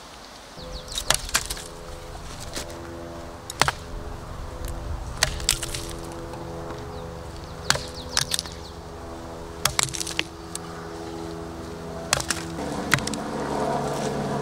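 Work Tuff Gear Hemlock ARES survival knife chopping into a wooden stump: about a dozen sharp chops, singly or in quick pairs, every second or two. Background music of held chords plays throughout and grows fuller near the end.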